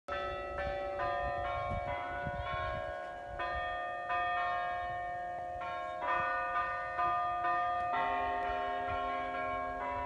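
Tower chime bells of the Chautauqua bell tower playing a tune, single notes struck one after another, about one or two a second, each ringing on and overlapping the next.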